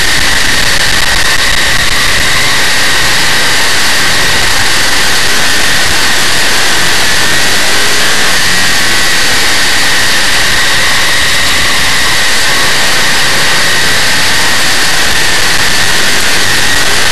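Dirt modified race car's big-block Chevrolet V8 running hard at racing speed, heard from inside the car through the onboard camera's microphone as a loud, constant din.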